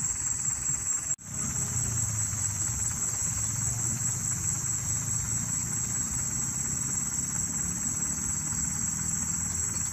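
Steady outdoor background noise: a constant high-pitched drone over a low rumble, cut off for an instant about a second in.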